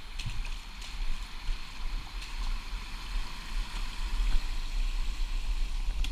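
Creek water trickling through a beaver dam, under a steady low rumble on the microphone, with a few light snaps and clicks of dam sticks.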